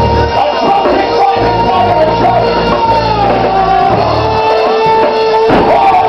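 Loud music with singing, long held notes over a steady bass, with a single thump about five and a half seconds in.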